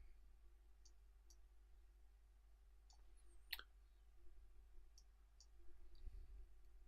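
Near silence with faint computer-mouse clicks: about seven over the stretch, several in quick pairs, the clearest about three and a half seconds in.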